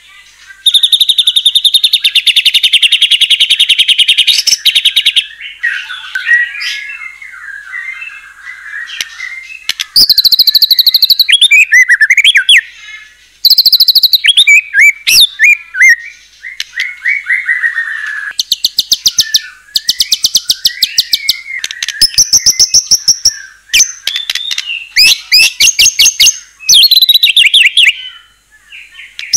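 White-rumped shama (murai batu) singing loudly and continuously: runs of very fast, rattling repeated notes alternating with shorter warbled and whistled phrases.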